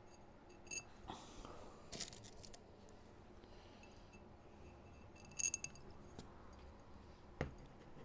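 Light metallic clicks and clinks of a scale-model tank's aluminium road wheel and small metal fittings being handled, two of them ringing briefly, and a soft knock near the end as the wheel is set down.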